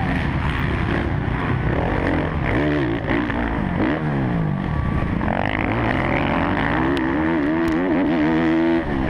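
Kawasaki KX450F's single-cylinder four-stroke engine heard from on board the racing bike, its pitch repeatedly climbing and dropping as the throttle opens and closes through corners and gear changes.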